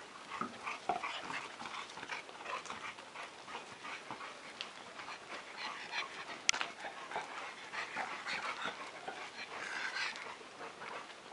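Several dogs playing close together, with many short breathy sounds of panting and sniffing; a single sharp click about six and a half seconds in.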